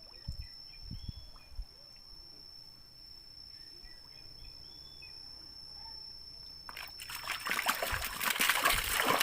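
Quiet outdoor background with a few faint bird chirps, then, about seven seconds in, loud water splashing and sloshing that builds toward the end.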